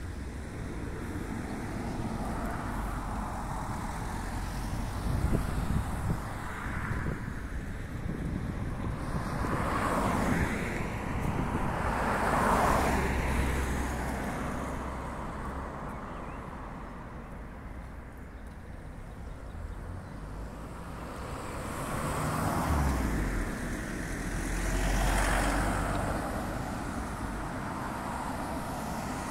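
Road traffic: cars passing close by one after another, each swelling and then fading, loudest about halfway through and again near the end.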